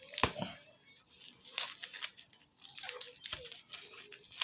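Plastic packaging crinkling and tearing as it is opened by hand, with a few sharp knocks.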